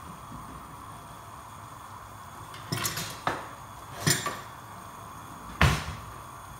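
Kitchenware clinking and knocking: about five sharp knocks and clinks in the second half, the loudest near the end, over the steady bubbling of soup boiling in the pot.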